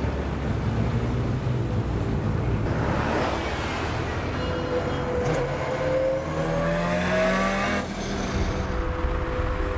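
Motorway driving noise heard from a moving car: a steady engine drone and tyre roar, with a car rushing past about three seconds in. Through the middle an engine note rises steadily as a car accelerates alongside, breaking off near the end.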